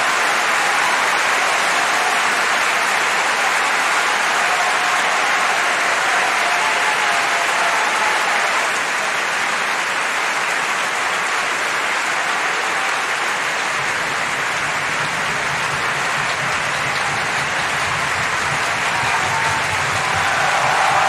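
Sustained applause from a large audience, easing slightly about nine seconds in and swelling again near the end.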